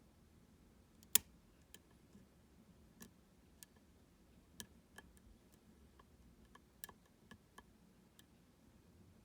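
Faint, irregular clicks of a lock pick working the pins of a U-Shin Showa NX, a 13-pin lock with three rows of pins. One sharper click about a second in is the loudest.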